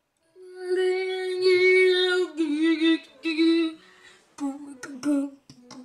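A boy singing in a high voice: one long held note, then a few shorter, wavering notes, with several sharp clicks among short notes near the end.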